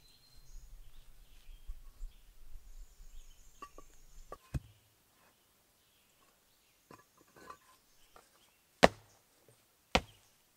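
Concrete pavers being bedded into a dirt bank, with scattered light knocks and scraping as they are handled. Near the end come two sharp knocks about a second apart as a paver is stepped on and settles under foot.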